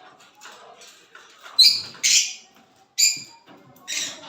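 Small pet parrots in an aviary giving four short, shrill screeches, each under half a second and roughly a second apart, with quieter chirping between them.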